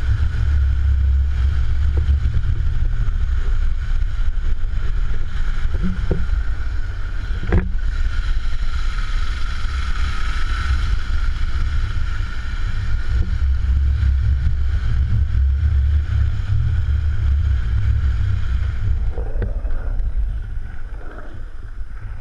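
Longboard wheels rolling over rough asphalt with a steady low rumble and wind buffeting the camera microphone, one sharp click about seven seconds in; the rumble eases near the end.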